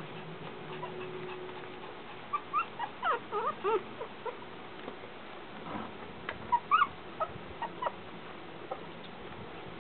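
Three-week-old Shih Tzu puppies whimpering in short squeaks that bend up and down in pitch. They come in two bouts, one starting about two seconds in and another around seven seconds.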